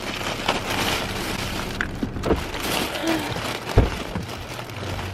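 Fabric rustling and being handled close to the microphone, with a few light knocks and one heavier low thump about four seconds in.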